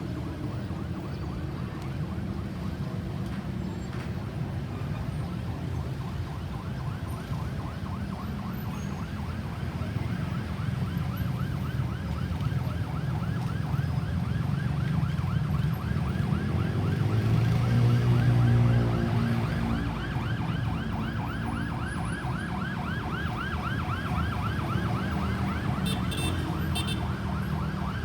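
Ambulance's electronic siren in a fast, rapidly repeating rise-and-fall, faint at first and growing louder past the middle as the vehicle comes closer, over a low rumble of traffic.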